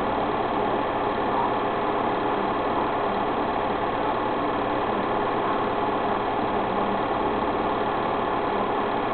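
A small machine running steadily with an even mechanical whirr that does not change.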